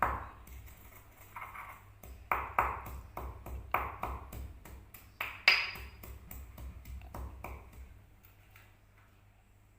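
Peppercorns and coriander seeds being pounded: a quick run of sharp, ringing knocks, several a second, that thins out and stops near the end.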